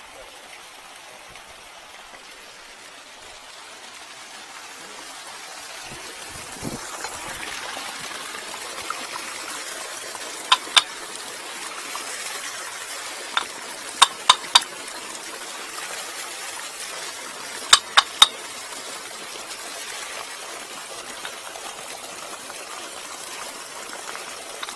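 Water running steadily from the plumbing, swelling about five seconds in and then holding. Short sharp clicks come over it in small groups: two, then one, then three, then three, around the middle.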